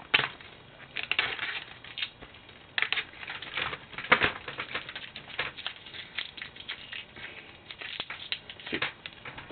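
A DVD's plastic packaging being torn open and handled: irregular crinkling and rustling with scattered clicks, the sharpest about four seconds in.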